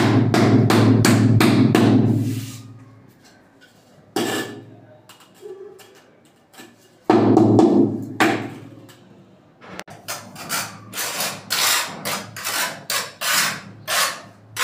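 Open-hand slaps on a large ceramic wall tile, bedding it into the adhesive: a quick run of slaps at the start and again about seven seconds in. Near the end comes a string of sharper, separate knocks, about three a second.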